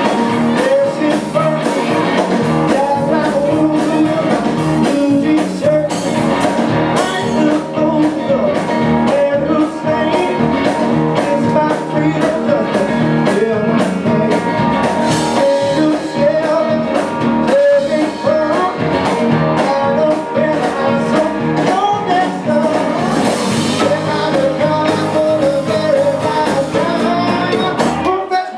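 Blues-rock band playing live: resonator and electric guitars, electric bass and drums, loud and steady.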